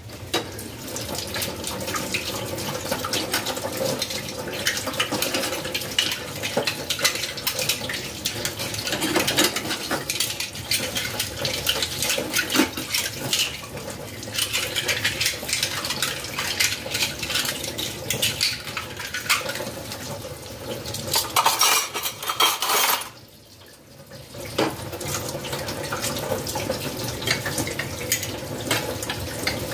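Dishes being washed under a running tap: a steady rush of water with clinking and clattering of stainless steel pans, a lid and cutlery. The water stops briefly about twenty-three seconds in, then runs again.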